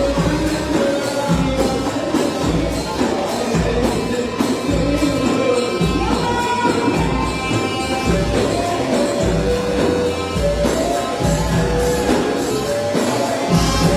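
A woman singing an Arabic song over band accompaniment with a steady beat.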